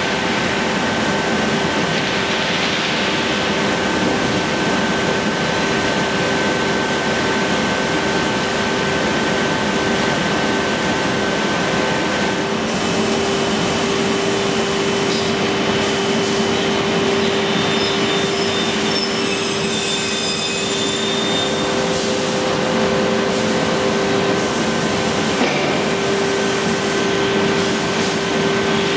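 Automatic panel saw running: a steady machine drone with several constant hums. The hums shift about twelve seconds in and change again around twenty seconds, as the machine moves through its cycle.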